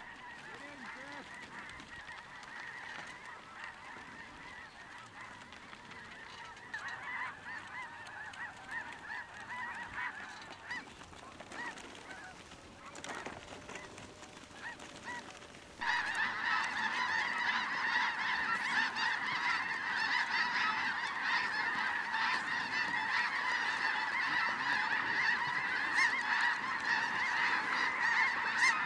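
A large flock of snow geese calling overhead, a dense continuous chorus of overlapping honks and yelps. It grows suddenly much louder just past halfway.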